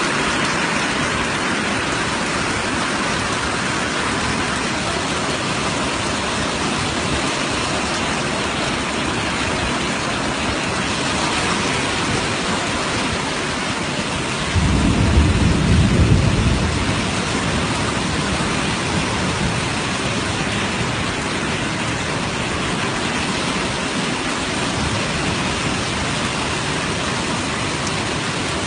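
Steady rain hiss. About halfway through, a low rumble lasts about two seconds.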